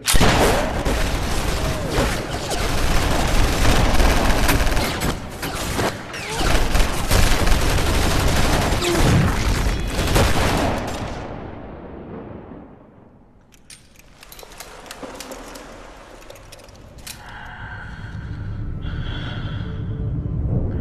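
A dozen guns firing at once in a sustained fusillade of submachine-gun and handgun shots, each emptying its magazine. The shooting fades out after about eleven seconds, and low music comes in near the end.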